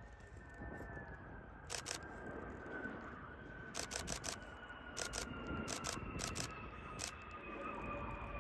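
Camera shutters firing in about six quick bursts of two or three clicks each. Behind them is the Airbus Beluga XL's Rolls-Royce Trent 700 turbofans, a low rumble with a whine that slowly drops in pitch as the aircraft passes.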